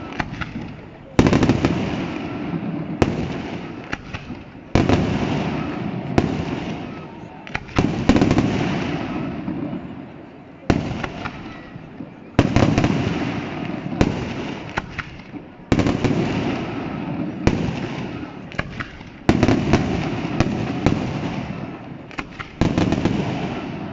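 Firework shells bursting one after another: about a dozen sharp booms, each followed by a rolling echo that fades over a second or two, with crackling between some of them.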